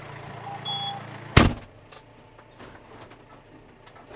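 A vehicle engine running at idle, then a single loud bang about a second and a half in, after which the engine hum fades and only small clicks and knocks are left.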